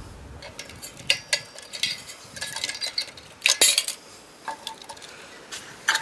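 Metal clinking and scraping as pliers work the aluminium cooling fins off a microwave-oven magnetron: scattered sharp clinks, the loudest about three and a half seconds in.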